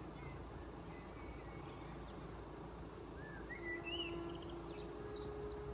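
Birds chirping a few times in short rising and falling calls over a faint, steady low rumble. A steady low hum comes in about three and a half seconds in and steps slightly higher near the end.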